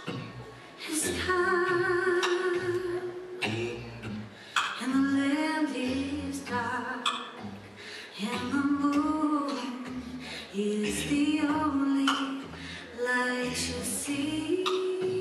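A woman singing solo a cappella into a microphone. She sings in phrases with long held notes and short breaks between them.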